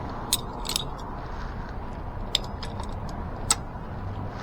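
A few sharp metallic clicks and clinks of hand tools on an e-bike's rear hub-motor axle and dropouts as the stuck axle is worked loose, over a steady low background rumble.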